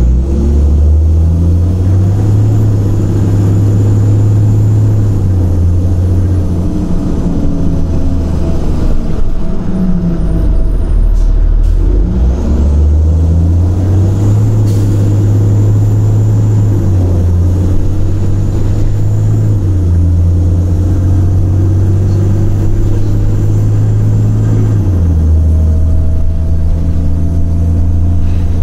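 Cummins ISL diesel engine of a 2006 Orion VII bus running loudly, its pitch stepping up and down every few seconds as engine speed rises and falls. A faint whine rises in pitch near the end.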